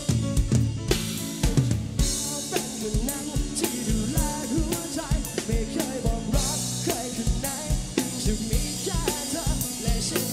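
A band's song played back from multitrack files through a mixer: a full drum kit with kick and snare keeping a steady beat, under bass, keyboards and a singing voice.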